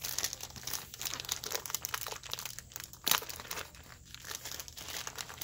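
Plastic wrapping on a stack of comic books crinkling and rustling as it is handled, with a sharper crackle about three seconds in.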